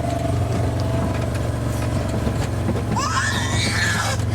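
A vehicle's engine running steadily. About three seconds in, a short high-pitched call rises and then falls over about a second.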